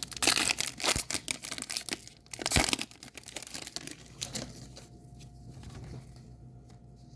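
Crinkling and rustling of a foil trading-card pack and its cards being handled, busiest in the first three seconds with a sharp crackle about two and a half seconds in, then settling to quiet handling.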